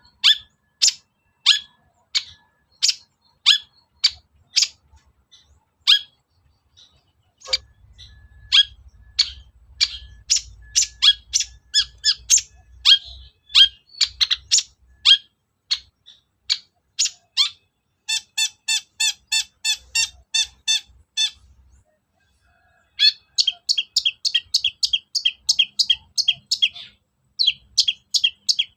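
Long-tailed shrike (cendet) giving sharp, harsh calls about one or two a second, with a fast rattling run of repeated notes in the middle and another near the end. It is a lure recording (pancingan), played to provoke a caged shrike into answering and singing.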